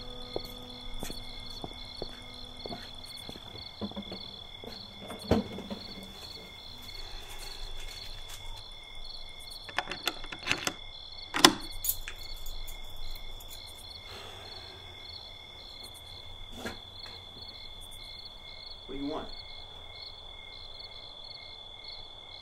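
Crickets chirping steadily in a high, pulsing chorus, with a few sharp knocks about ten to twelve seconds in.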